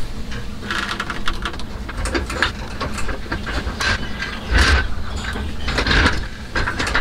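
Irregular knocks, clicks and scraping from hand work on a truck's rear suspension, with a couple of heavier thuds about four and a half and six seconds in, over a steady low hum.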